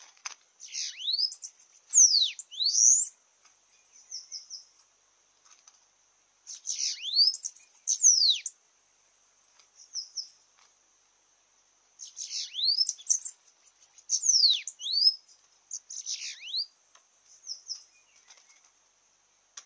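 Bananaquits singing in a territorial face-off: very high, thin, buzzy song phrases made of quick sweeps falling in pitch, in three bouts a few seconds apart.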